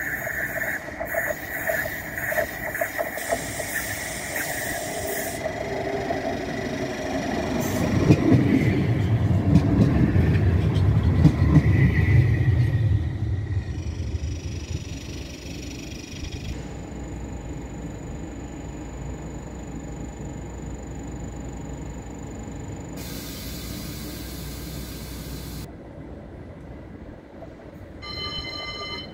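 A Midland Metro CAF Urbos 3 tram passing along the line, its rumble of wheels on rails building to its loudest about eight to thirteen seconds in, then fading away. A short ringing tone sounds near the end.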